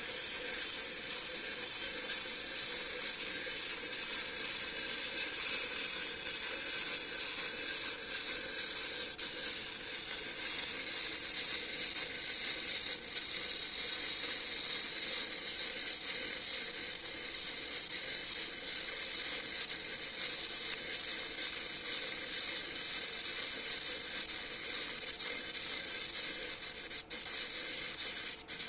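Electric welding arc sizzling steadily during a 6G-position pipe weld, with a couple of brief drops near the end.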